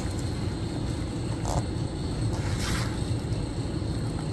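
Bee suit being handled and zipped: mesh fabric rustling and a plastic zipper being drawn around the veil, over a steady low rumble of handling noise, with a brief rasp about two and a half seconds in.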